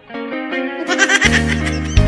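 Music from a Tagalog ballad: after a brief dip, instruments pick up and a singing voice with a wavering vibrato comes in about a second in.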